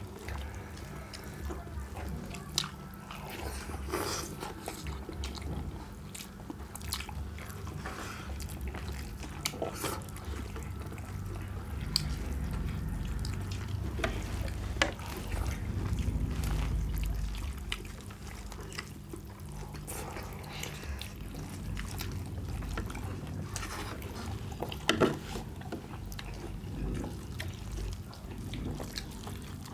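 Close-up wet eating sounds of chicken curry and jeera rice eaten by hand: squelching, mixing and chewing, with scattered short clicks over a steady low hum.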